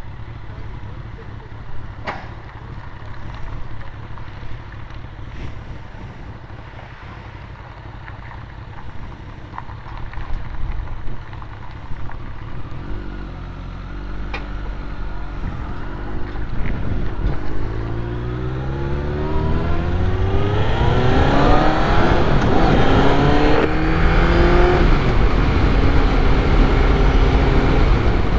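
Honda CBR1100XX Blackbird motorcycle's inline-four engine running at low speed, then accelerating through the gears from about halfway in. The pitch climbs and drops back at each of several upshifts, and wind noise grows louder as speed builds.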